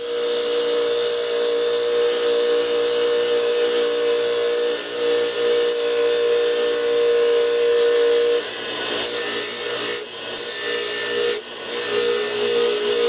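Bench grinder's wire wheel spinning with a valve from a flathead small engine held against it, scrubbing the valve clean: a steady motor hum with a scratchy hiss. The hum wavers and dips several times in the last few seconds as the valve is worked against the wheel.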